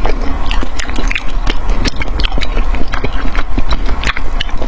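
Close-miked chewing and mouth sounds of someone eating, with many quick, irregular clicks and smacks.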